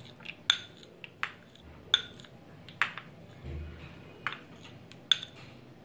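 A steel spoon clinks sharply against a bowl and the rim of a steel pot, about six times, less than a second apart, as it scrapes and taps the last of the custard-powder mixture out into the milk.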